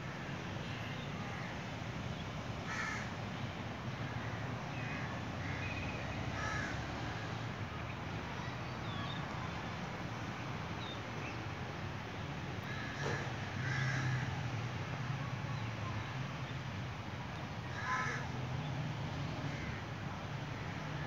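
A bird cawing about five times, short harsh calls a few seconds apart, over a steady low hum.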